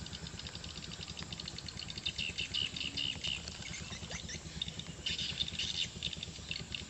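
A fast, high-pitched chirping chorus of wild animals, rising in two louder clusters about two and five seconds in, over a faint low rumble.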